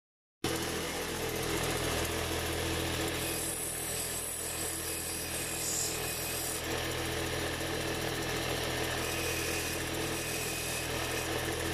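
Lapidary grinding wheel running steadily, with a wet black opal pressed against it to shape the stone: a constant motor hum under a grinding hiss, which turns brighter and sharper for a few seconds in the middle.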